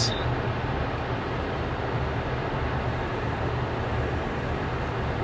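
Car driving: a steady low engine hum under even road noise.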